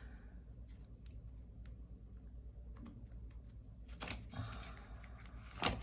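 Faint scattered clicks and taps over a low steady hum, with a sharper click about four seconds in and another near the end.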